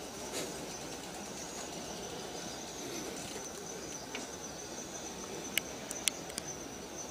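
Outdoor ambience of insects droning steadily on one high-pitched note over a low background hum. A few sharp clicks come between about five and a half and six and a half seconds in.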